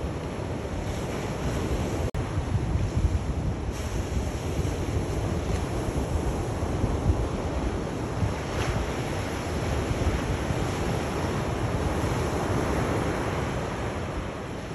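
Sea waves washing onto the shore: a continuous surf noise that swells and eases, with heavy low rumble. A single sharp click about two seconds in.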